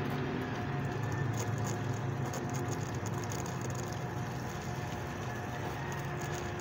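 Electric water pump motor running with a steady hum while water sprays out of an open priming port held under a hand: the pump is being primed, air purged until it starts drawing water.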